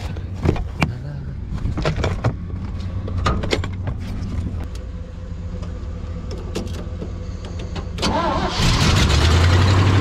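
Clicks and clanks of jumper-cable clamps being fastened over a vehicle engine idling. About eight seconds in, an old three-ton grain truck's engine, on a jump start, cranks briefly and catches, then runs much louder.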